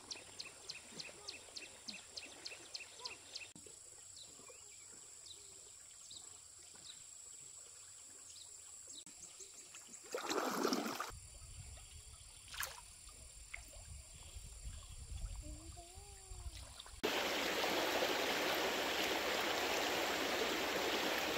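Stream sounds: a rapid run of high chirps near the start, a single loud splash-like rush about ten seconds in, then from about seventeen seconds a loud, steady rush of flowing water.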